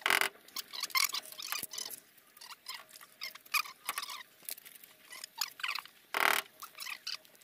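Busy handling noise from cable work: many quick rustles, clicks and small squeaks. Two louder scraping bursts come at the very start and about six seconds in.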